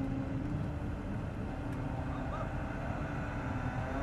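Engine of a mobile crane running steadily: a low rumble with a constant hum.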